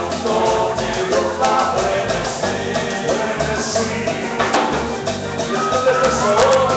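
Live Latin dance band playing amplified through the stage sound system, with keyboard, percussion and a steady bass pulse under a singing voice, picked up on a phone's microphone in the crowd.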